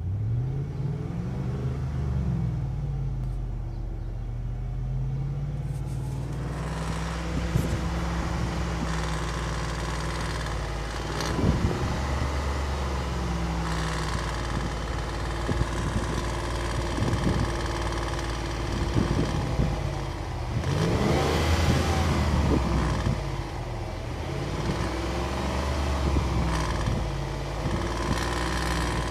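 BMW M62TU 4.4-litre V8 running and being revved up and down repeatedly, with a rattle that comes in around 2000 to 2500 rpm once fully warm, just after a new timing chain, tensioner and guides; the owner thinks it might be the VANOS.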